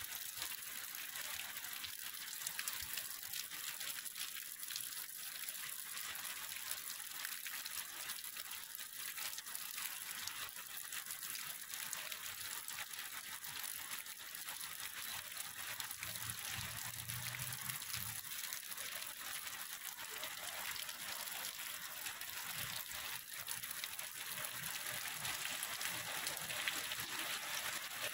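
Steady rain falling on water and wet ground: an even hiss made up of many small drop ticks.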